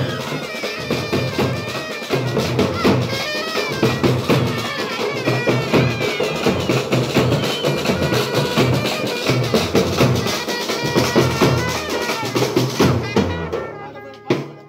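A street band's drumming: large double-headed bass drums and stick-beaten side drums playing a fast, steady rhythm. It dies away about a second before the end, with one last stroke.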